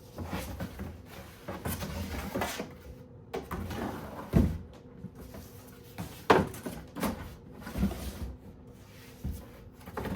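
Cardboard display bin flaps being folded in and pressed into place by hand: scraping rustles with a string of irregular sharp knocks, the loudest about four and six seconds in.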